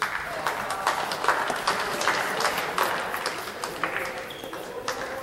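Players and spectators clapping in scattered, irregular claps, heaviest in the first few seconds and thinning out, with voices calling out over it.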